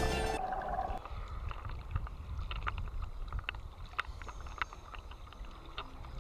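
Music stops within the first second. Then choppy sea water sloshes and laps at the surface close to the microphone, with many small, sharp splashes scattered throughout.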